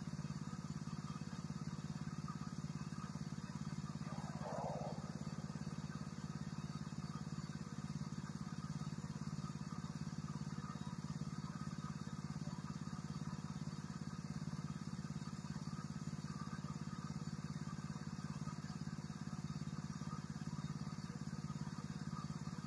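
GroundHog LH500 tracked mini dumper's engine idling steadily at a constant speed.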